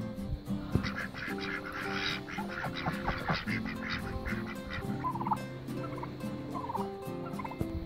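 Domestic poultry (chickens, ducks and turkeys) calling, with a busy run of calls in the first few seconds and a few short calls later, over acoustic guitar music.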